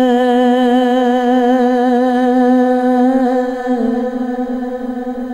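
A man's singing voice holds one long note of an Urdu sung verse, with a wavering vibrato and no accompaniment. The pitch steps down slightly a little after three seconds, and the note grows softer toward the end.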